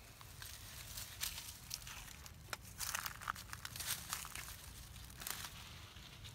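Dry leaf litter crackling and rustling as monkeys move and pick through it. The crackles come irregularly, densest about halfway through.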